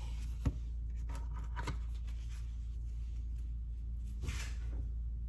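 Soft handling noises while icing cupcakes: a light knock about half a second in, brief scraping and rubbing, and a short rustle near the end, over a steady low hum.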